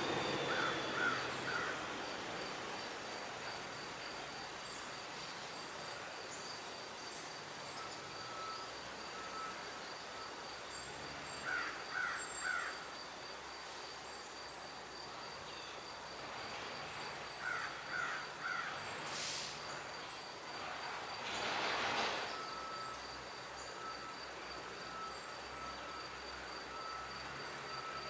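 Outdoor yard ambience with a steady background hum and a faint, high, pulsing tone. Three times a bird gives a quick series of three or four harsh calls. About three-quarters of the way through, a short rushing noise swells and fades.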